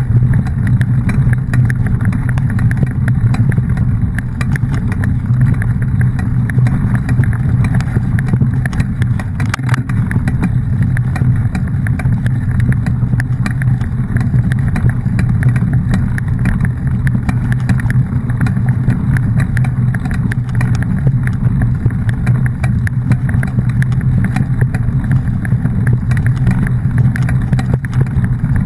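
A vehicle running steadily, a loud low rumble that holds the same pitch and level throughout with no revving or gear changes.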